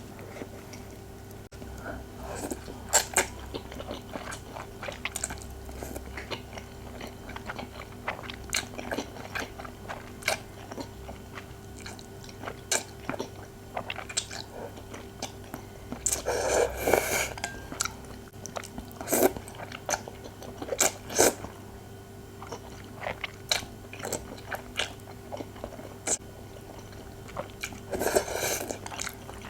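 A person eating spicy instant fire-chicken noodles close to the microphone: chewing and wet mouth clicks scattered throughout, with two longer, louder bursts, one just past halfway and one near the end. A faint steady hum sits underneath.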